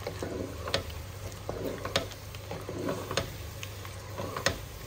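A spatula stirring eggplant pieces through masala in a granite-coated pot, knocking sharply against the pot about once a second over a low sizzle.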